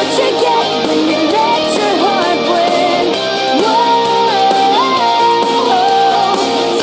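Background pop-rock song with guitar, a melody line holding notes and stepping between them.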